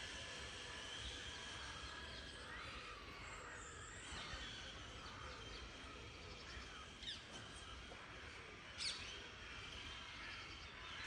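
Wild birds chirping over a steady outdoor background hiss, with a few sharp chirps standing out about seven and nine seconds in.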